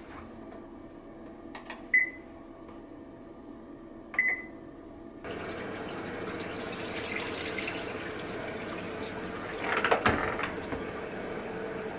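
Top-loading washing machine: two short beeps from its control panel, then water starts pouring into the drum about five seconds in and runs steadily. Near the end the lid comes down with a brief clunk over the running water.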